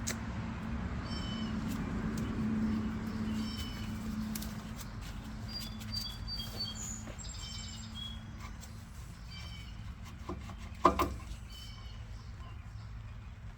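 Birds chirping in short repeated high notes over a steady low hum, with one short knock about eleven seconds in.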